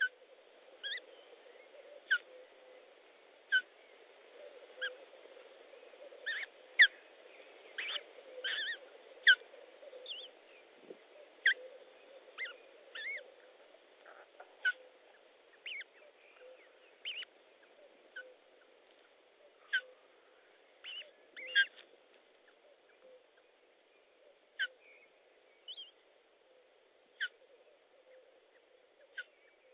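Osprey nest calls: short, high peeping notes repeated irregularly, about once a second and most often in the first half, while the female feeds the newly hatched chick. A faint steady hum runs underneath.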